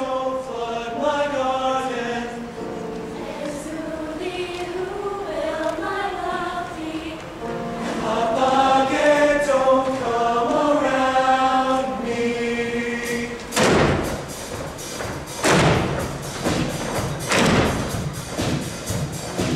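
A mixed show choir singing in close harmony, its chords changing every second or so. About two-thirds of the way in, loud thumps come in roughly every two seconds, with quicker percussive taps between them, over quieter singing.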